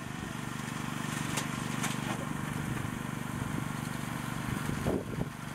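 Engine running steadily at a constant speed, with a few short knocks over it.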